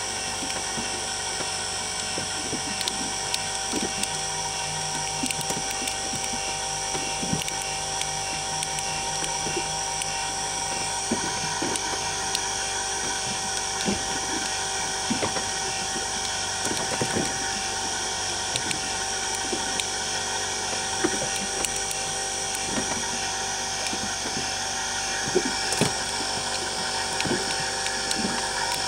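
A boat's engine running steadily at a constant pitch, a droning hum with a high whine over it, and light knocks now and then.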